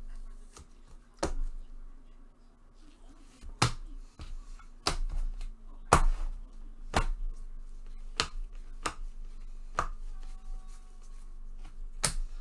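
Sharp snapping clicks at an irregular pace of roughly one a second, as Bowman baseball trading cards are flicked over one at a time while a pack is gone through.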